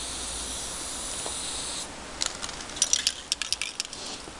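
Aerosol spray-paint can spraying paint onto asphalt in a steady hiss, which stops after about two seconds. Then a quick run of sharp metallic clicks, the can being shaken with its mixing ball rattling inside.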